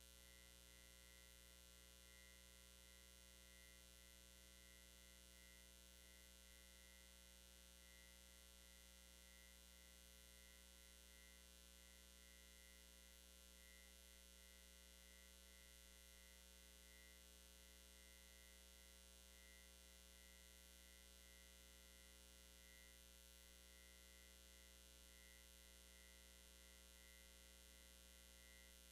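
Near silence: a faint, steady electrical mains hum with a thin high whine flickering above it.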